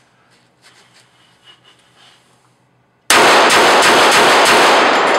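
A Kimber 1911 .45 ACP pistol fires a rapid string of shots. They start suddenly about three seconds in, after a few faint clicks, and come fast enough to run together into one loud continuous blast.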